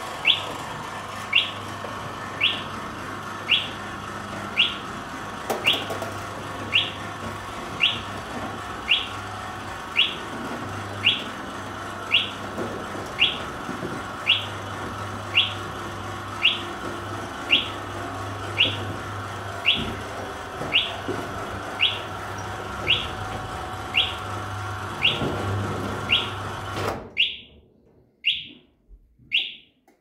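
Fire control panel's sounder giving short high chirps about once a second over the steady hum of the roller fire shutter's motor driving the door down. Near the end the motor noise cuts off suddenly, and the sounder chirps three more times before stopping.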